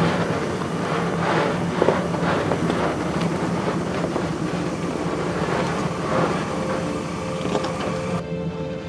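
A 4x4 vehicle driving over a rough dirt trail: a steady engine drone with many short rattles and knocks from the bumps.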